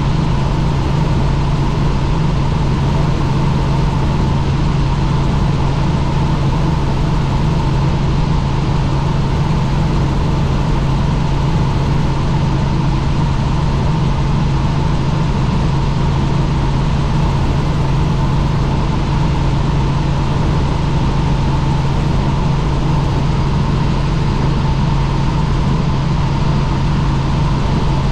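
Helicopter in flight, running steadily: a loud, unchanging low drone with a thin whine above it.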